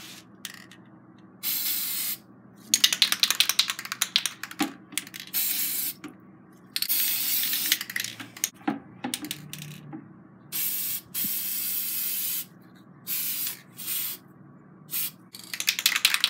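Aerosol spray paint cans hissing in repeated bursts of about half a second to two seconds, with short pauses between, as paint is sprayed onto water to build a film for hydro dipping. A few light knocks come between the bursts.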